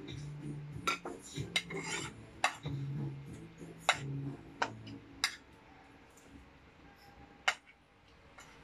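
Spoons and forks clinking and scraping on ceramic dinner plates as people eat: a quick run of clicks for about five seconds, then only a few, with one sharp clink near the end.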